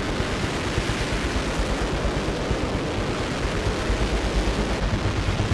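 Rocket engine firing on a test stand during a static ground test: a steady, noisy roar with a deep rumble underneath.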